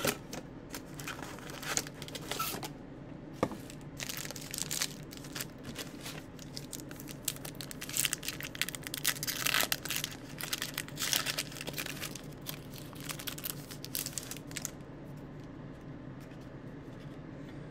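Trading-card pack wrapper and cardboard box flap being torn and crinkled open by hand, a busy run of crackling rustles and tearing that dies away a few seconds before the end.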